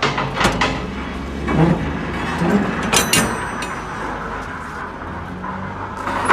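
Steel shipping-container door being unlatched and swung open: locking-bar handles and latches clanking, with a sharp metallic clang that rings briefly about three seconds in.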